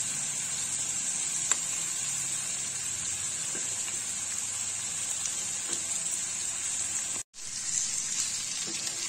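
Oil sizzling steadily in a non-stick wok as fried fish pieces, green peppers and onions stir-fry with sauce, with a few faint ticks. The sound breaks off for an instant about seven seconds in.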